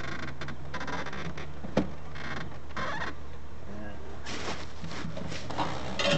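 Rustling and crinkling of plastic packaging as contents are handled in a wooden crate, in several short bursts, with a single sharp knock about two seconds in. A steady low hum runs underneath.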